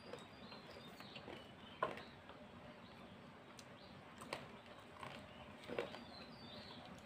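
Quiet eating sounds: a few soft, sharp mouth clicks and smacks from chewing rice eaten by hand, spaced a second or more apart.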